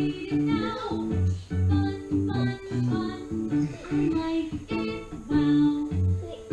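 Music playing on a television: a plucked string instrument over a bouncing bass line, with a singing voice.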